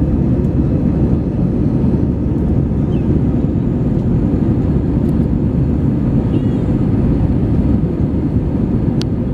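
Steady low roar of an airliner's jet engines and rushing air, heard inside the passenger cabin in flight. A sharp click about nine seconds in.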